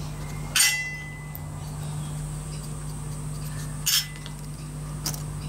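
Small metal parts of a Taipan Tyro model diesel engine clinking twice, about three seconds apart, as the engine is taken apart by hand. The first clink rings on briefly, and a fainter click follows near the end.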